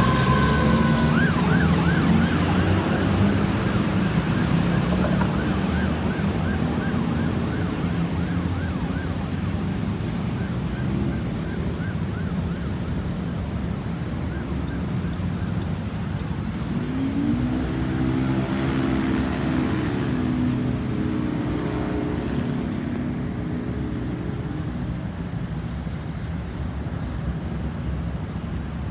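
Ambulance siren in a fast yelp, fading away over the first half, over a steady rumble of road traffic. Later a lower pitched tone rises and holds for a few seconds.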